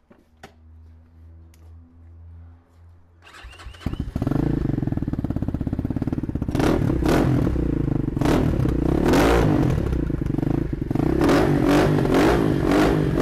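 X-Motos XB-39 250 cc single-cylinder four-stroke dirt bike engine starting about four seconds in, then running loud with a string of quick throttle blips revving it up and back down.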